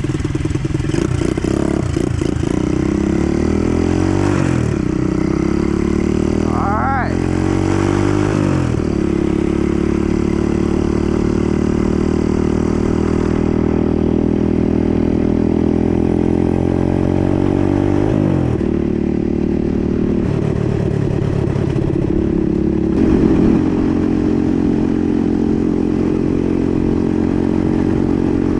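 125cc dirt bike's single-cylinder engine pulling away through the gears, its pitch climbing and then dropping at each of two shifts in the first nine seconds, then running at a steady pitch at cruising speed, with another drop about two-thirds of the way through.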